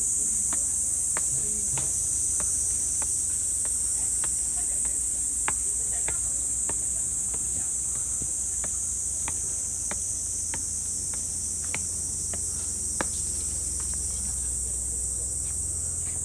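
Cicadas keep up a steady, high-pitched buzzing chorus. Faint footsteps on stone steps tick underneath, about every two-thirds of a second.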